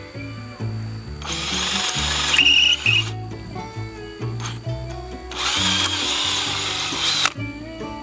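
Cordless drill boring into a wooden board in two runs of about two seconds each, the first starting about a second in and the second about five seconds in, over background music.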